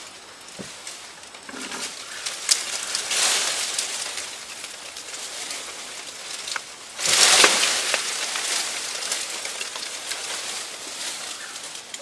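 Leafy branches and brush rustling, with twigs crackling, as a person pushes through dense forest undergrowth; the loudest burst of rustling comes about seven seconds in.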